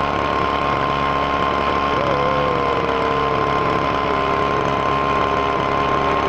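Leaf blower running steadily at full blast, holding a tennis ball up in its airstream. A steady high whine runs through it, and a lower tone comes in about two seconds in and slowly drops in pitch.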